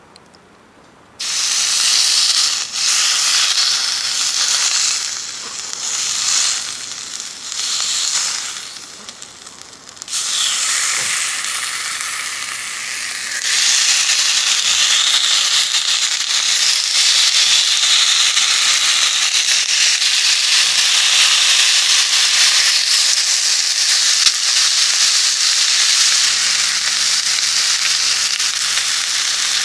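Food frying in a hot pan: a loud sizzle starts suddenly about a second in, as the food goes in. It wavers for several seconds, then settles into a steady sizzle that gets louder about halfway through.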